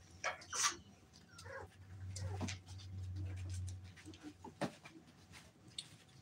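Young American bully puppies whimpering and yipping in short scattered cries, the sharpest about half a second in, with a low hum for about two seconds midway.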